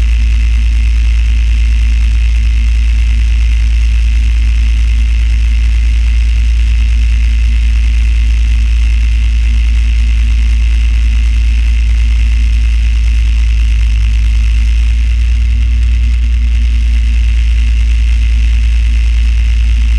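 Fire engine's diesel engine running steadily, heard from inside the cab, while the apparatus pumps water to supply a ladder truck's master stream. A loud, even, deep rumble that holds without change.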